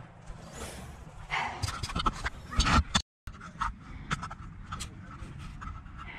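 A person breathing hard, panting close to the microphone, with low wind rumble. About halfway through the sound cuts out completely for a moment, and after that come a few scattered light clicks and rustles.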